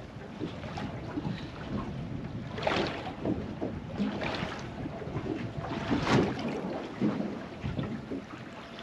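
Sea water slapping and lapping against the hull of a small boat, a few louder splashes among it, with wind on the microphone.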